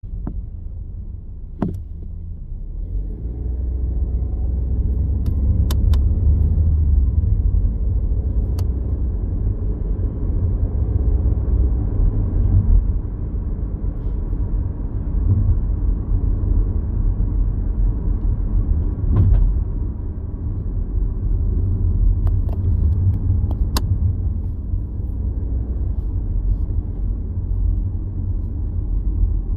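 Sharp clicks from the driver's seat of a 2024 Volkswagen Jetta, coming at irregular intervals a few seconds apart, heard inside the cabin over the steady low rumble of the car driving.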